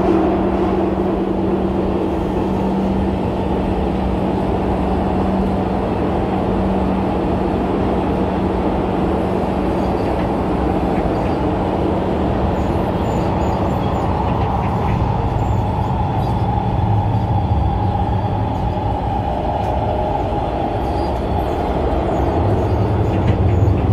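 SMRT Kawasaki C151 metro train running: a steady rumble of wheels on rail with a low motor hum that fades over the first few seconds.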